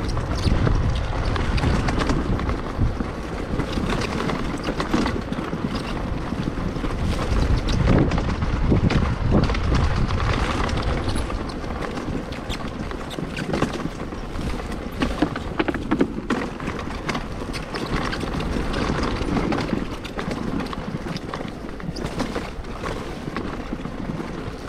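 Dirt bike riding along a rough dirt singletrack, its engine running under heavy wind buffeting on the microphone, with small knocks and rattles from the bike over the ground.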